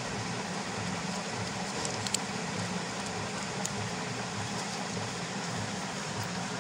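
Steady background noise: a low hum under an even hiss, with a faint click about two seconds in.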